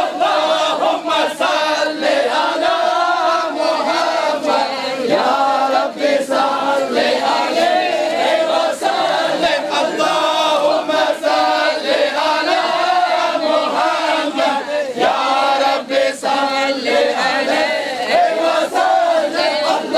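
A crowd of men chanting together in unison, a Sufi devotional chant, with a steady beat of sharp strikes running under the voices.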